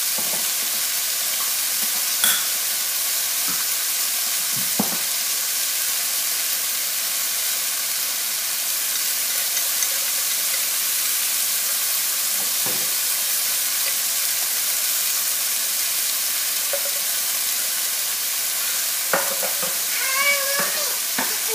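Chicken pieces and ginger strips sizzling in hot oil in a nonstick frying pan, a steady hiss, with a few short knocks of a utensil stirring and turning the food.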